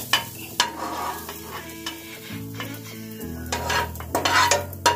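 A metal spatula scraping and tapping roasted masala paste out of a hot nonstick kadhai onto a steel plate, with some sizzling. There are a couple of sharp taps near the start and a louder stretch of scraping near the end.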